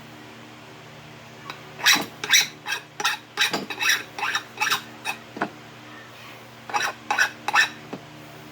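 Sharp metallic knocks of metal striking metal: about a dozen at roughly three a second, a short pause, then four or five more, while a copper-pipe battery-cable connector is being worked with hand tools.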